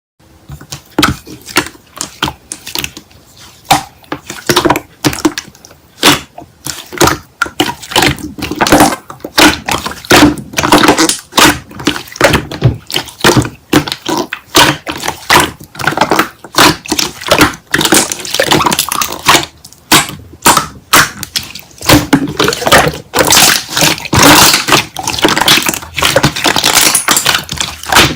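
Slime being squished and pressed by hand, giving a rapid, continuous run of sticky pops and clicks.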